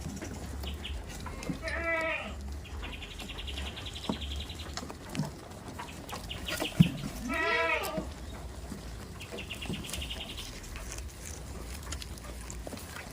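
Goats bleating: two drawn-out, wavering calls, one about two seconds in and another at about seven and a half seconds. Between them a high, rapidly pulsed buzzing trill comes and goes, and a sharp knock sounds just before the second bleat.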